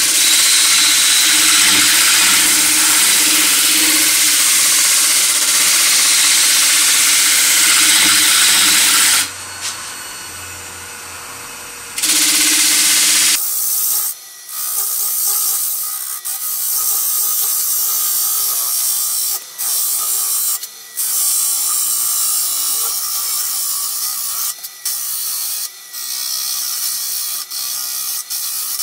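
Carbide cutter scraping the inside of a spinning plane-wood bowl on a wood lathe: a loud, steady rasping hiss of cutting. The cut drops away about nine seconds in, bites again briefly, then from about thirteen seconds runs lighter, with a faint steady machine tone underneath and several sudden short breaks.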